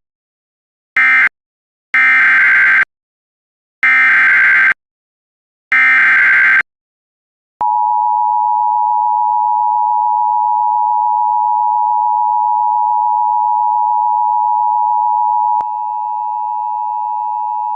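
Emergency Alert System signalling: the last short squawks of the previous alert's end-of-message data code, then the next alert's SAME header as three raspy digital data squawks about two seconds apart, followed by the steady EAS two-tone attention signal starting about seven and a half seconds in. The attention tone dips slightly in level about two seconds before the end.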